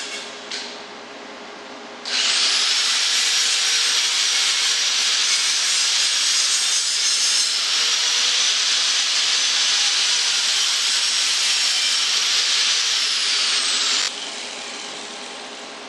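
TIG welding arc on a stainless steel downpipe: a steady hiss with a high whine over it, which starts about two seconds in. The whine sags in pitch near the end, just before the arc cuts off about fourteen seconds in.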